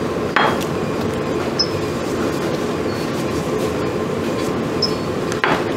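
Steady ventilation rumble of a room's air handling, with two short bursts of noise, about half a second in and near the end.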